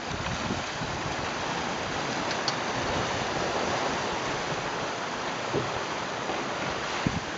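Steady rush of water and wind as a small racing sailboat moves fast under sail, with a couple of faint knocks in the second half.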